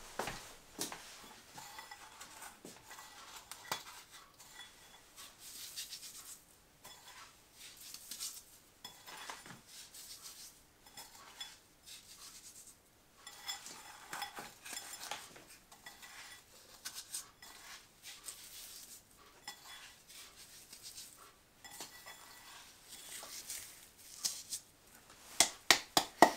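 Salt sprinkled by hand from a small ceramic bowl over shredded white cabbage: scattered faint clinks and rustles, with a few sharp clinks of the bowl near the end.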